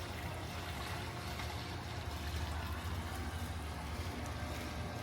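Steady running, trickling water from a backyard jacuzzi, with a constant low hum underneath.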